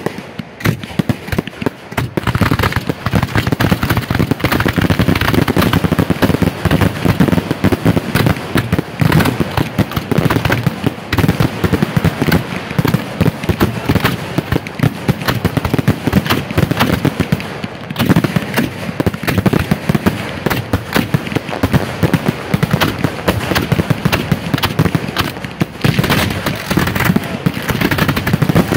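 Fireworks finale barrage heard from close to the launch site: shells launching from mortars and bursting overhead in rapid, overlapping succession, the volley becoming dense and continuous about two seconds in.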